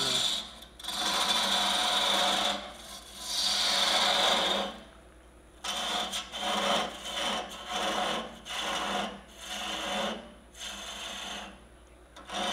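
Turning tool cutting into a spinning walnut goblet stem on a wood lathe: a rough scraping hiss of the tool peeling shavings. It comes in two long cuts over the first few seconds, then a run of shorter cuts about a second apart.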